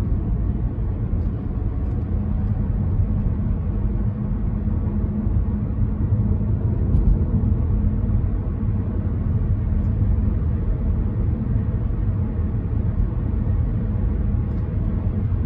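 Cabin noise of an Audi A3 e-tron cruising at about 80 km/h in Battery Charge mode: a steady low rumble of its 1.4 TFSI petrol engine running to charge the battery, mixed with road and tyre noise.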